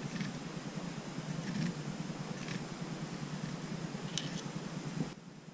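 Hand chamfering tool turned in a chamber mouth of a Ruger GP100 revolver cylinder: a low, rough grinding with faint scrapes about once a second, the cutter still cutting rough on the chamber edge. The grinding stops about five seconds in.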